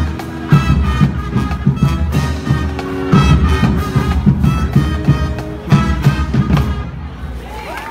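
Marching band playing, horns over a fast, steady drum beat; the music drops away near the end.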